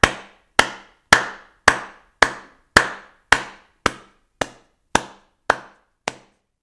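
A steady series of sharp knocks, about two a second, each with a short echoing tail, slowly fading.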